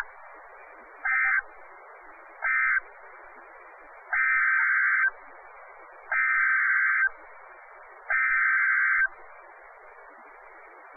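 NOAA Weather Radio SAME alert data tones over steady radio hiss. Two short bursts about a second apart close the end-of-message code of the alert just read. Then come three one-second bursts, a second apart: the coded header of the next alert.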